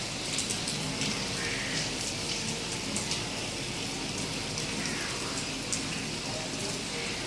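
Steady rain falling, a continuous patter with many individual drops ticking sharply as they hit surfaces.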